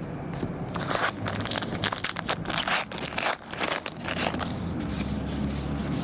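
Paper wrapper of a 2012 Gypsy Queen baseball card pack being torn open and crinkled by hand, a quick run of crackling rustles that dies down after about four seconds.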